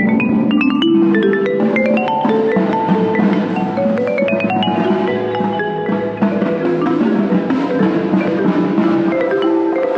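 Marimba played with two yarn mallets in fast passages of notes, with quick upward runs near the start and again about four seconds in, alongside the rest of a percussion ensemble.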